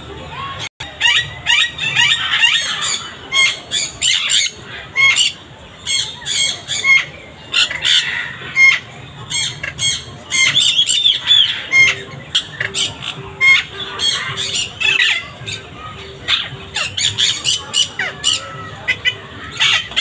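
Parrots in an aviary squawking and screeching, a dense run of short, shrill calls one after another. A faint pulsing low tone sits under the calls through the second half.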